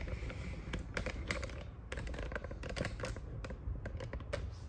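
Irregular light clicks and taps: a hard 3D-printed plastic bracket knocking against an aluminum extrusion as it is fitted into place.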